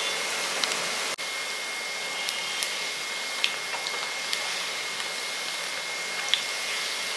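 Moong dal balls deep-frying in hot oil in a cast-iron kadai: a steady sizzling hiss with a few faint ticks.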